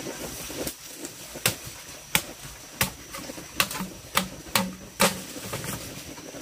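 A series of about eight sharp knocks at irregular intervals, some under a second apart, with the loudest about five seconds in.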